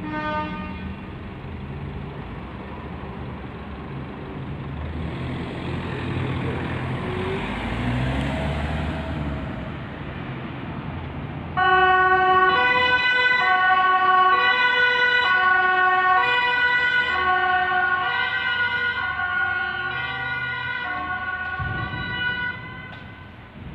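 Fire service van pulling away with its engine running. About halfway through, its two-tone siren switches on abruptly and loudly, alternating between two pitches about every half second, then fades near the end as the van drives off.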